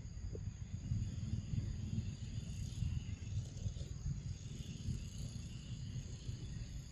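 Outdoor forest ambience: a steady high-pitched buzz of insects over a low, uneven rumble.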